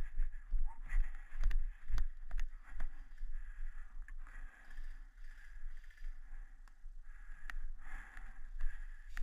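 Footsteps on outdoor ground, a dull knock about every half second, over low wind rumble on the microphone.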